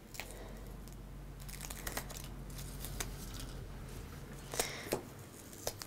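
Paper backing being peeled off double-sided tape and handled: faint tearing and crinkling with a few small clicks.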